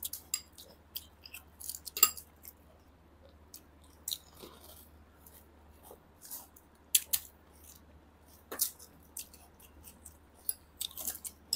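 Crisp pani puri shells cracking and crunching as they are poked open and eaten in a hurry: scattered short, sharp crackles at irregular intervals.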